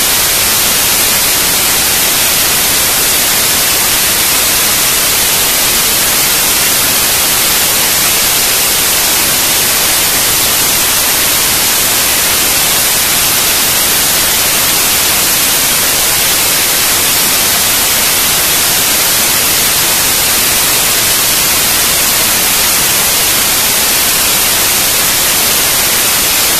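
Loud, steady static hiss that does not change.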